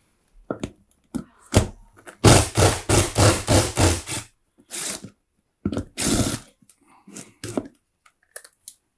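Hard plastic and metal parts of a cylinder vacuum cleaner being worked by hand. About two seconds in there is a quick rattling run, roughly five strokes a second for two seconds, followed by scattered single clicks and knocks.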